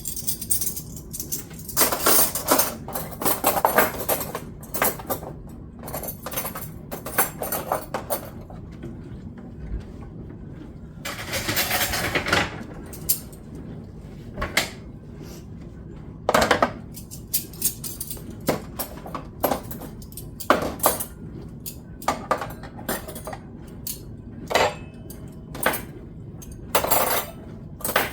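Dishes, pots and cutlery clattering and clinking as kitchenware is handled, in a string of irregular knocks with a few longer rattling stretches.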